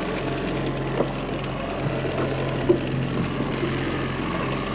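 Boat outboard motor running steadily at low, even speed, with a couple of light knocks about a second in and again near the three-second mark.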